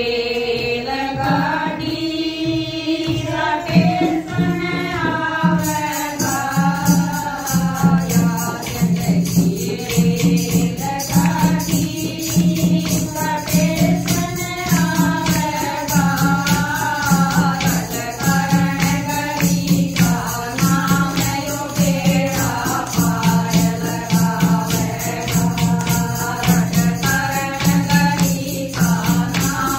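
A group of women singing a Haryanvi bhajan together in unison, with a steady hand-drum beat. Rhythmic hand clapping and jingling percussion join about six seconds in and keep time with the song.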